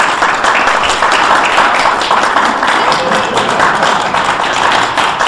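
Congregation applauding: a dense, steady clatter of many hands clapping.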